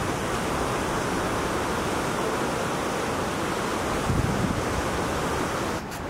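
Steady rushing roar of the Petrohué River's rapids and falls, with a brief low rumble about four seconds in.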